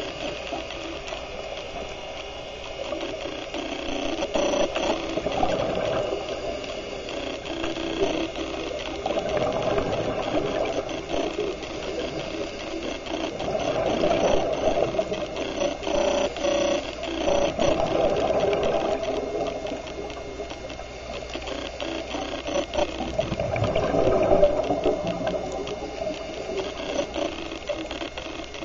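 Underwater noise from a scuba diver's breathing: the regulator and exhaled bubbles, swelling and fading every few seconds with a rattling texture.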